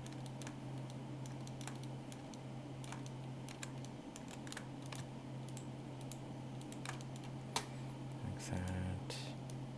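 Computer keyboard keys clicking irregularly as Blender modelling shortcuts are pressed, over a steady low hum.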